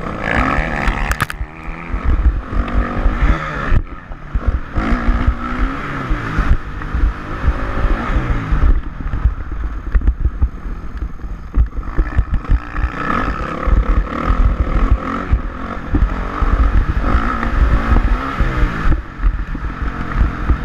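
2006 Honda CRF450R's single-cylinder four-stroke engine being ridden on a motocross track, revving up and falling back again and again, with heavy low rumble.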